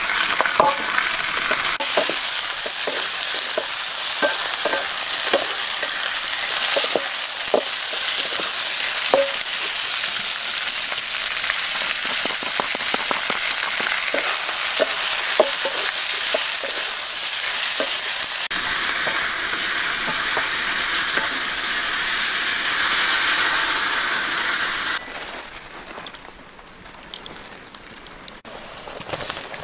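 Frog pieces sizzling in hot oil in a wok, with frequent short clicks of the spatula against the pan as they are stirred through the first half. The sizzling cuts off suddenly near the end, leaving a quieter background.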